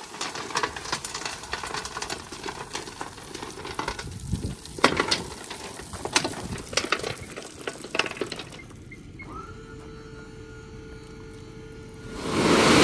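Gravel rattling and clattering as a loaded dump trailer's bed tilts up. About nine seconds in a steady whine from the trailer's electric hydraulic pump starts, and near the end a loud rush of gravel sliding out of the bed rises over it.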